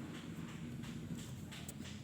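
Light clicks and knocks of hand tools and parts during reassembly of a motor scooter, a few scattered taps over a low steady hum.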